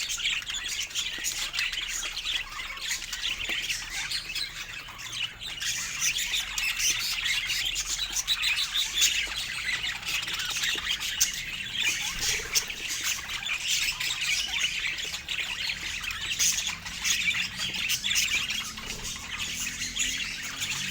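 Budgerigars chirping and chattering without a break, many short calls overlapping.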